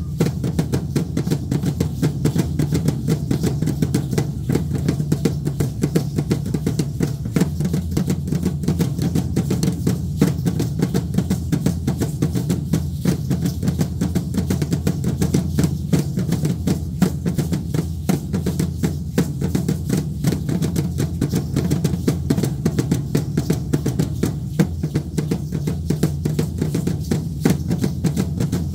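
Danza Azteca drumming: a deep drum, typically the huehuetl, beaten fast and without a break as dance accompaniment.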